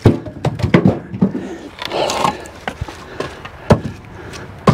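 Split firewood pieces tossed one at a time into a pickup truck bed, landing on the pile of split wood with hard wooden knocks and clatter. There is a quick cluster of knocks in the first second, then a few single knocks about a second apart near the end.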